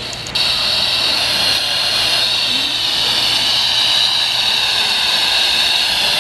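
Steady hiss of radio static from a weather radio receiver, coming in about half a second in after a few short crackles.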